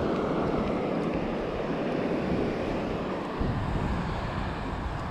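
Surf washing onto a sandy beach, with wind buffeting the microphone in low gusts that ease off early on and pick up again past the middle.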